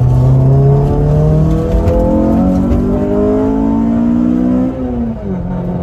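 Honda S2000 four-cylinder engine accelerating hard through a new stainless-steel single-exit cat-back exhaust, heard from inside the convertible's cabin: its note rises steadily in pitch, taking the cabin to about 91 dB, then drops about five seconds in and holds at a lower pitch.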